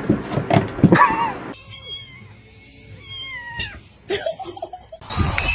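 Cat meowing: about three short meows, each falling in pitch.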